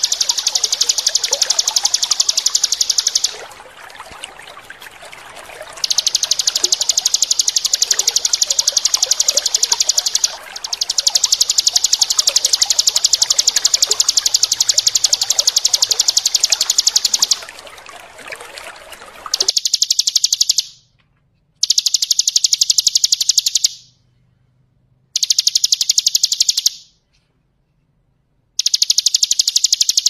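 Bar-winged prinia (ciblek) singing its very rapid, continuous high trill ('ngebren'), in long runs broken by short pauses. Trickling water runs beneath it for about the first two-thirds and then stops abruptly.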